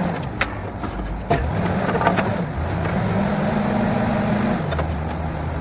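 Diesel engine of a borewell drilling rig running, its speed rising a little about halfway through and dropping back near the end, with a few sharp metallic knocks in the first two seconds.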